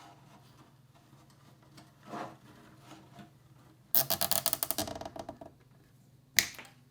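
Handling noises of PC build parts: a soft rub, then a quick run of rapid ticks lasting over a second, and a single sharp click near the end.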